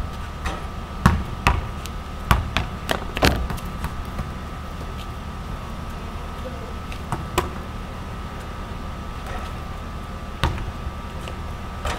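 Basketball striking the rim and backboard and bouncing on a concrete court: a quick run of sharp thuds in the first few seconds, a couple more near the middle and one near the end, over a steady low hum.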